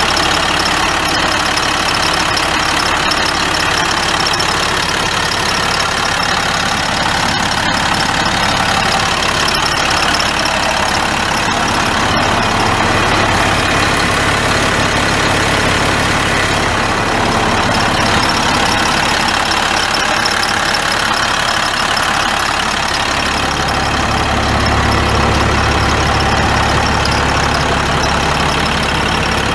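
International DT530 8.7-litre inline-six turbo diesel in a dump truck, idling steadily; its low hum grows stronger near the end.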